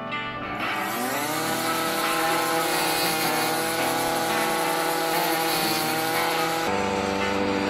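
Ryobi gas string trimmer fitted with a brush-cutter blade, its engine revving up over the first two seconds and then running steadily at high speed, with an abrupt change in pitch near the end.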